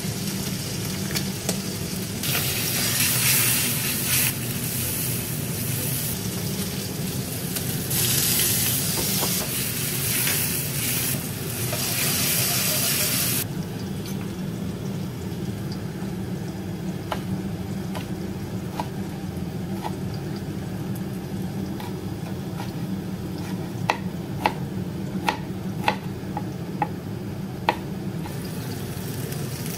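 Diced bacon sizzling in a wok on a gas hob, louder in two stretches in the first half. In the second half a kitchen knife cuts kimchi on a cutting board with a series of sharp taps over the frying.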